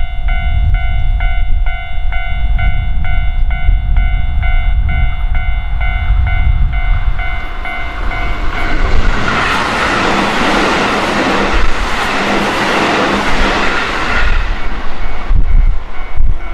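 A level-crossing warning bell rings in a steady electronic beat. About nine seconds in, a Keihan 1000-series electric train passes close by, and its rolling noise drowns the bell for about five seconds. Near the end the bell can be heard again as it keeps ringing.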